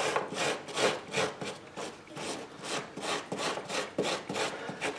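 Small hand wire brush scrubbing rust off a steel roller chain on a wooden bench, in quick back-and-forth scratchy strokes, about three a second.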